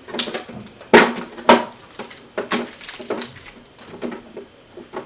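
Handling noises from an inkjet printer's plastic body: a series of sharp knocks and clicks, the two loudest about a second in and half a second apart, with fainter ones after.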